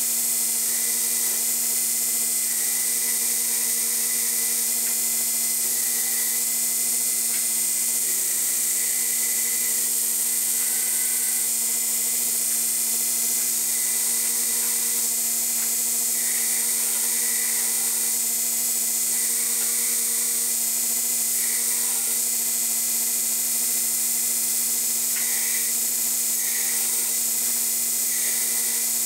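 Belt grinder running steadily while a steel knife blank, cut from a truck leaf spring, is ground against the abrasive belt: a steady hum under a high grinding hiss.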